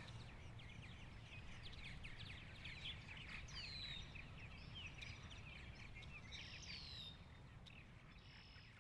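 Faint outdoor ambience of small birds chirping, with many quick chirps and a few downward-sliding calls, over a low steady rumble, growing fainter toward the end.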